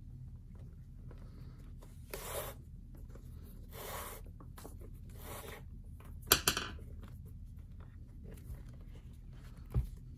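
Leather lace pulled through the woven loops of a leather baseball glove web: four short rasping pulls, the loudest starting with a sharp click, then a soft knock near the end.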